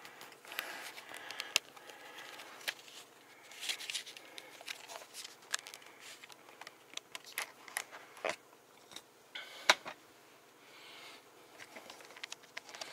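Plastic bezel frame being prised off a display screen by hand: a string of sharp plastic clicks and snaps with short bouts of scraping, one louder snap near the end.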